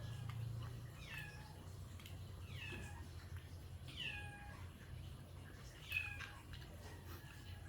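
A cat meowing four times, about a second and a half apart. Each meow is high and falls in pitch, and the last is the loudest.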